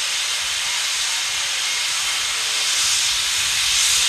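Boiler blowdown on Union Pacific 4014 'Big Boy' steam locomotive: a loud, steady hiss of steam and water venting from the boiler. It swells a little about three seconds in.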